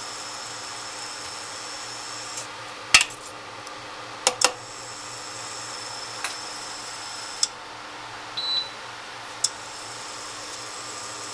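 A saucepan of gelatin mixture simmering on an electric glass-top hob, with a steady hiss. Sharp clicks come every second or two, the loudest about three seconds in, and a high-pitched whine switches on and off with some of the clicks.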